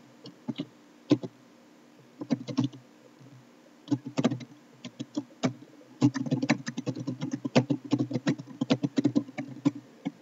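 Computer keyboard typing: short bursts of keystrokes with brief pauses, then a fast, dense run of keystrokes from about six seconds in.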